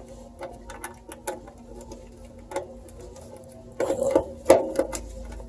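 Small plastic clicks and taps of front-panel connector plugs being handled and pushed onto a motherboard's header pins, with a louder cluster of clicks about four seconds in.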